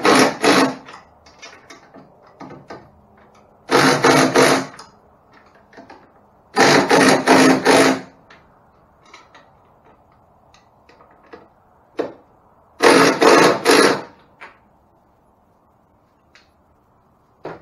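Cordless drill run in four short bursts of about a second each, driving the stainless steel bolts that snug a jack plate against a boat's transom, with light clicks and handling between the bursts.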